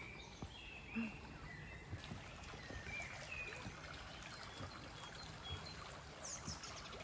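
Shallow creek flowing over pebbles and stones: a faint, steady trickling rush of water, with a few short high chirps scattered through it.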